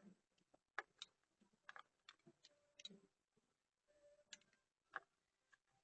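Faint, irregular clicks and light taps of small parts and hand tools being handled during a spark plug thread-insert repair.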